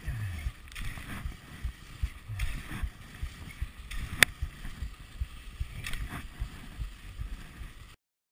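Cross-country skis swishing and scraping over groomed snow at a steady glide, with low irregular thumping and one sharp click about four seconds in. The sound cuts off abruptly near the end.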